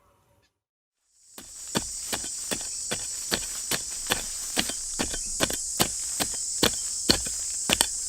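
Sharp knocks repeating evenly, about two and a half a second, starting about a second in, over a steady high-pitched hiss.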